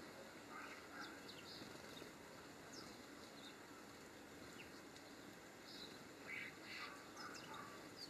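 Faint calls of small garden birds: short chirps scattered throughout, bunching together about six to seven and a half seconds in, over a quiet, steady outdoor background.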